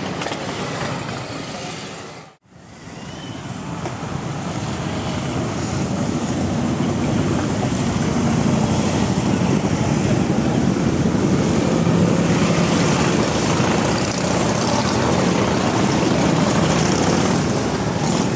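Harley-Davidson V-twin motorcycles running in a group ride. The sound cuts out abruptly for a moment about two seconds in, then comes back and builds to a steady level.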